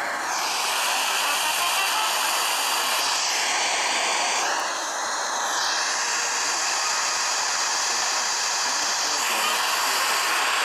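Steady hiss of radio static from a weather radio receiver losing the broadcast signal, drowning out the warning message. The tone of the hiss shifts for a few seconds around the middle.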